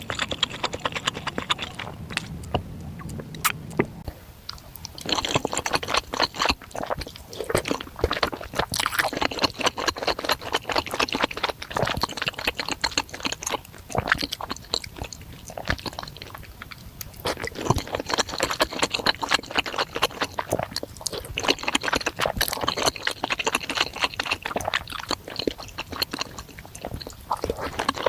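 Close-miked eating of spicy bakso meatball soup: a steady stream of wet chewing and mouth clicks and smacks, with a few brief lulls.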